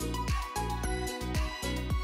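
Background music with a steady beat, a low drum hitting about twice a second under sustained notes.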